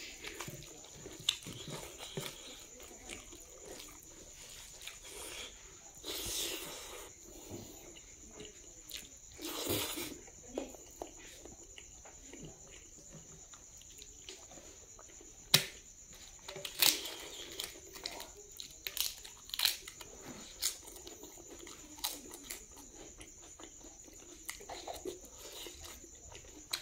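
Close-up chewing and mouth sounds of a man eating rice and pork by hand, with scattered sharp wet clicks and smacks and a couple of short rustling bursts.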